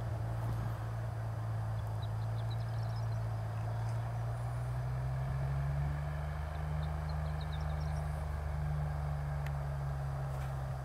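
Single-engine light plane's piston engine and propeller running as it rolls down the runway, a steady low drone whose pitch rises a little about halfway through as the engine comes up in power.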